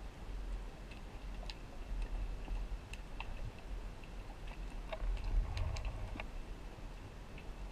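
Underwater sound picked up through a camera housing as a diver swims over a rocky reef: a steady low rush of water with scattered sharp clicks, which bunch together and grow louder about five seconds in.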